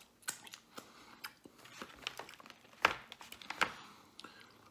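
Soft wet mouth clicks and lip smacks of a man chewing a garlic knot and licking his fingers, with two louder smacks about three seconds in.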